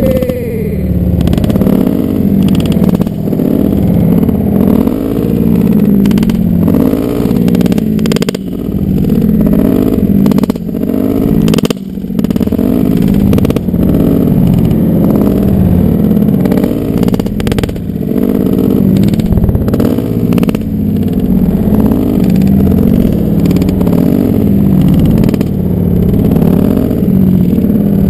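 Dirt bike engine running steadily at idle close by, loud and even with no clear revving.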